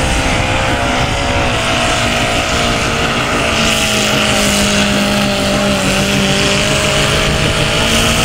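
Engine of a small-class pulling tractor running flat out under heavy load while it drags the weight-transfer sled. The note eases down a little over the first couple of seconds, then holds nearly steady as the load builds.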